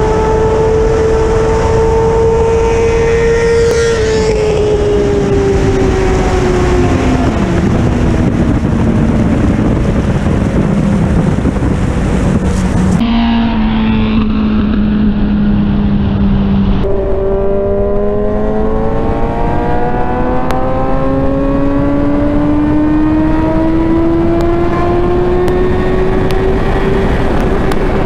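Inline-four sport motorcycle engine pulling at high speed under heavy wind rush. Its note holds, drops over a few seconds, then climbs steadily and unbroken through the last third.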